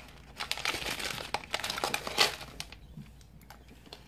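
A plastic Skittles candy bag crinkling and rustling in the hands for a couple of seconds, then a few faint clicks.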